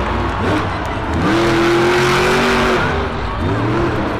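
Monster truck's supercharged V8 engine revving hard: the note climbs, holds high for about a second and a half, drops, then revs up again near the end.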